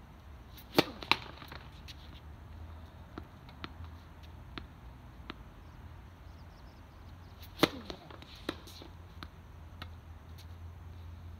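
Tennis ball being struck by rackets and bouncing on the court: two sharp hits close together about a second in and two more near the end, with fainter ticks between them, over a steady low hum.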